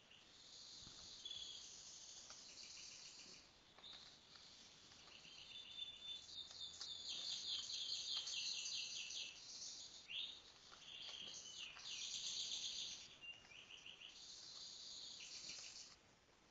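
Songbirds singing in rapid high trills and fast repeated chattering phrases, one phrase running into the next. The song is loudest in the middle and near two-thirds of the way through.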